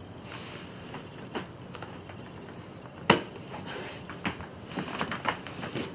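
Soft rustling and scattered light taps of young rabbits moving on a blanket in a plastic tub as a hand strokes them, with one sharper knock about three seconds in.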